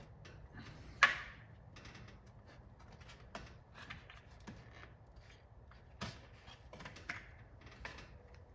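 Irregular clicks, taps and light knocks of hands working wooden dowel plugs into the button holes of a wooden control panel while gluing them in, with one sharp click about a second in that is the loudest.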